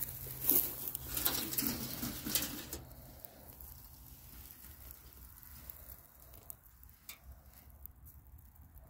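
Rustling through dry grass and a rusty corrugated metal sheet being lifted off the ground, with many sharp clicks and scrapes over the first three seconds; after that only faint rustling and a few light ticks.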